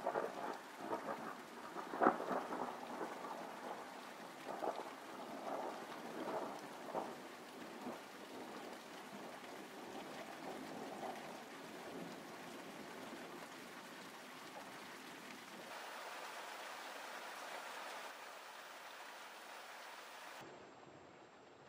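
Thunderstorm rain: a steady hiss of rain with irregular sharp taps and cracks through the first dozen seconds, the loudest about two seconds in. It then settles into an even hiss and drops off shortly before the end.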